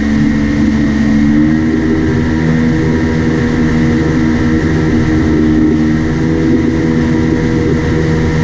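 An engine running steadily and loudly, its pitch stepping up slightly about a second and a half in, then holding.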